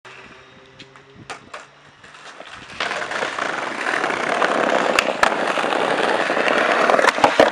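Skateboard wheels rolling over brick pavers: a few faint clicks at first, then from about three seconds in a loud, rough, continuous rumble, with a few sharp clacks over the paver joints.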